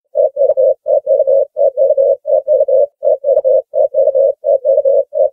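Collared dove cooing: a rapid run of short coos on one steady pitch, grouped in twos and threes, beginning just after the start.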